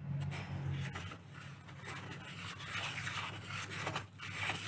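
Grey tile grout being stirred into a thick paste with a paintbrush handle in a small plastic pot: continuous gritty scraping against the pot's sides and bottom.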